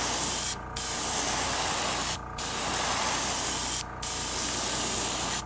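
Airbrush spraying black paint in hissing passes over a carved wooden lure, with short breaks between passes about every second and a half.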